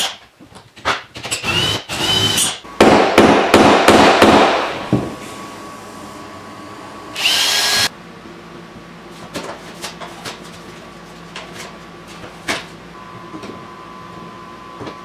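Handheld power drill running in short bursts, loudest about three to five seconds in and again briefly with a rising whine about seven seconds in, amid knocks and clatter of tools. A steady low machine hum with scattered clicks fills the second half.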